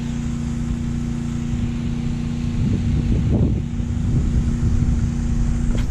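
Wind buffeting the microphone over a steady low motor hum.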